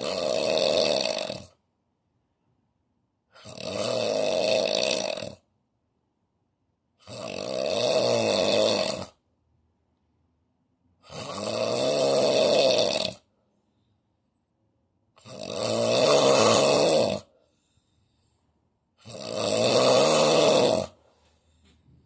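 A sleeping man snoring severely through his open mouth. There are six loud snores of about two seconds each, one every four seconds or so, with silence between them.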